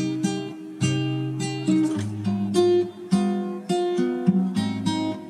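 Background music played on acoustic guitar: a steady run of plucked notes and chords.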